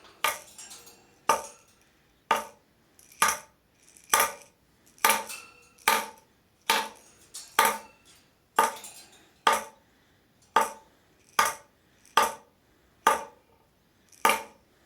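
A cockatoo banging a rattle toy: sharp clanks at an even pace of about one a second, each ringing briefly.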